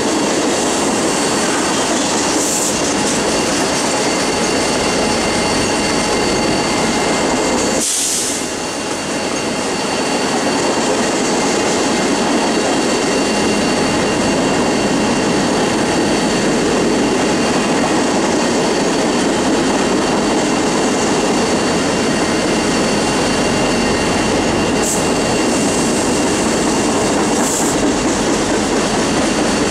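A mixed freight train's cars (tank cars, covered hoppers and boxcars) rolling steadily past, their wheels rumbling and rattling over the rails with thin, steady high squealing tones. The noise dips briefly about eight seconds in.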